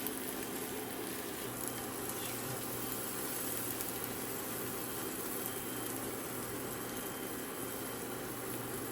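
Onions frying in oil in a robotic cooker's pot, a steady sizzle, with a low steady hum from the cooker's stirring motor.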